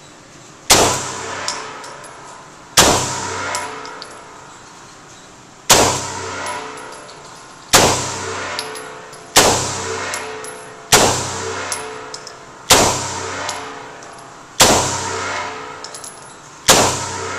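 Ruger P89 9mm semi-automatic pistol firing nine slow, deliberate shots, one every one and a half to three seconds. Each report echoes at length off the walls of an indoor range and is followed by light metallic clinks.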